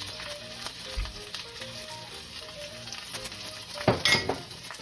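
Diced onions and bell peppers sizzling in hot oil in a carbon-steel wok. There is a low bump about a second in, and near the end a silicone spatula stirs and scrapes the vegetables around the wok in a short loud burst. Background music plays under it.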